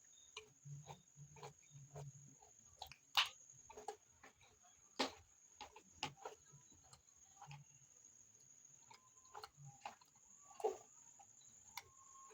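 Close-miked eating of rice and beans: wet mouth clicks and smacks over soft, repeated chewing thumps, with a few sharper clicks standing out.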